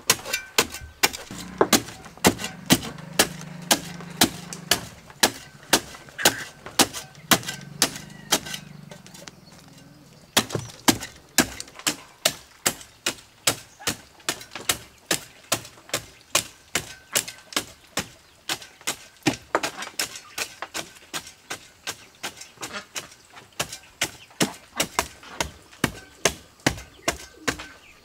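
A spade blade chopping again and again into clods of dry soil in a wooden raised planter box, about two sharp strikes a second with a short pause about ten seconds in: breaking up the soil to make a planting bed.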